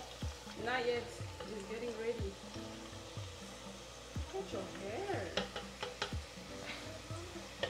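Hot oil sizzling in an electric deep fryer as sliced cassava (yuca) chips fry, a steady hiss. There are a few brief vocal sounds and several soft low thumps.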